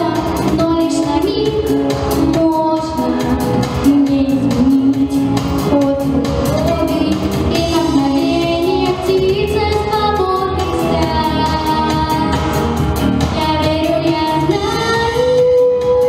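A girl singing a song into a microphone, with sustained, gliding notes over an instrumental accompaniment.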